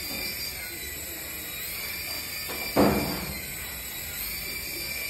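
Small remote-control toy helicopter's rotor motors whining in flight, the high whine rising and falling with the throttle. A single loud thump sounds a little past halfway.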